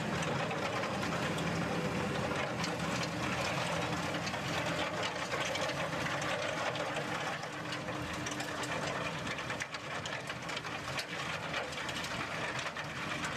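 A tractor is running steadily while it drives a manure spreader's spinning rear beaters as they throw out manure. The steady mechanical drone is overlaid with many small, irregular ticks.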